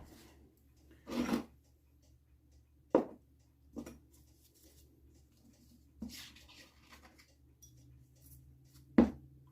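Metal tool clicking and scraping against a clutch circlip as it is worked loose: a short scrape about a second in, a sharp click at three seconds with a lighter one just after, another scrape around six seconds, and a sharp knock near the end.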